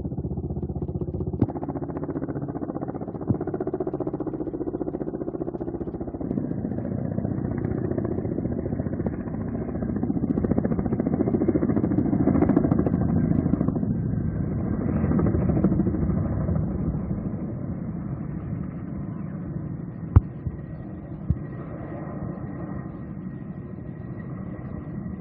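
A vehicle engine running steadily, growing louder for several seconds midway and then fading again, with two short knocks near the end.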